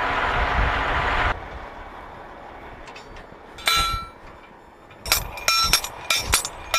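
Heavy military truck's diesel engine running, cut off abruptly a little over a second in. Then a slide-hammer driver strikes a copper grounding rod: one ringing metal clank near the middle, then a quick run of about six ringing metal-on-metal strikes toward the end as the rod is pounded into the ground.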